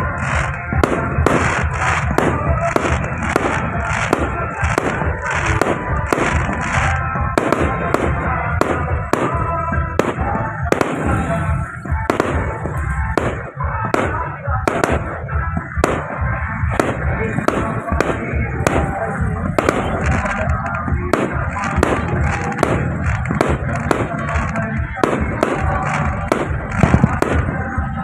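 Aerial fireworks display: a dense, continuous run of bangs and crackling bursts, about two a second, with music playing underneath.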